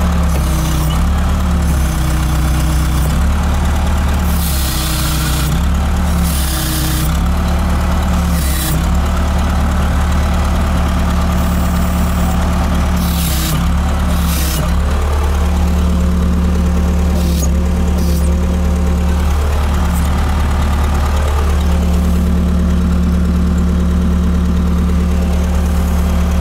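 Trackless MT5 tractor engine running steadily with its front snowblower spinning and throwing snow, the engine note dipping briefly several times in the first half as it takes load. Short bursts of rushing noise come through at a few points.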